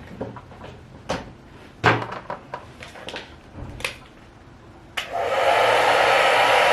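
Scattered clicks and knocks of items being handled, then about five seconds in a handheld hair dryer switches on and runs steadily, with a faint whistle in its blowing.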